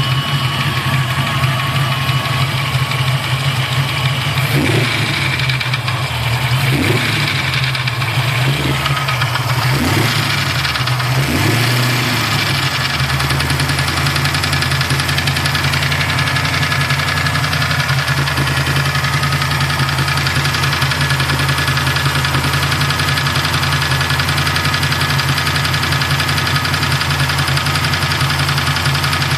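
Ford 347 stroker small-block V8 running, revved briefly about five times in the first half, then settling into a steady idle. The engine has a tapping from the top end, which the owner suspects is a lifter.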